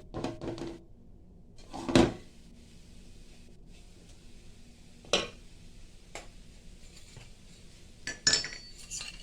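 Kitchen utensils knocking and clinking against metal dishes: a few separate strikes spaced a second or more apart, the one near the end ringing briefly.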